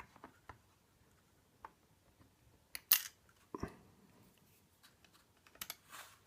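A series of small, sharp metal clicks and taps, the loudest about three seconds in: the pins and tools of a gutted ABUS C83 padlock being handled.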